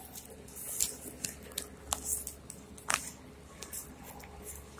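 Handling noise as the phone rubs against a winter coat: irregular rustles and clicks of fabric on the microphone, the two sharpest about two and three seconds in, over a faint low rumble.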